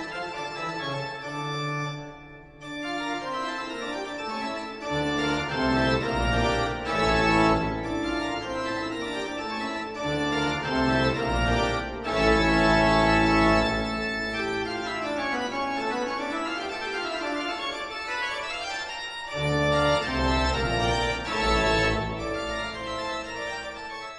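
Instrumental background music led by an organ-like keyboard, with a bass line coming in about five seconds in.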